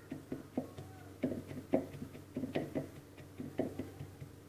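Pestle pounding roasted green peas in a mortar: a string of irregular knocks, about two or three a second, crushing them coarsely into chutney.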